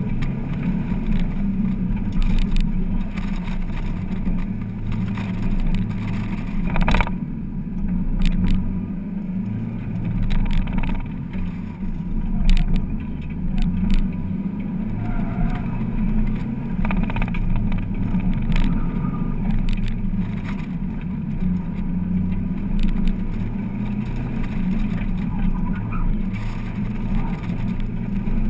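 1999 Mazda Miata's 1.8-litre four-cylinder engine running hard at full throttle around an autocross course, its note rising and falling with throttle and gear changes, heard from the open cockpit.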